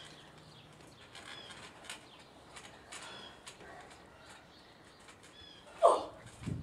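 Wrestlers moving on a backyard trampoline used as a ring, with small birds chirping now and then. About six seconds in comes one loud short impact, followed by a low thump from the trampoline mat.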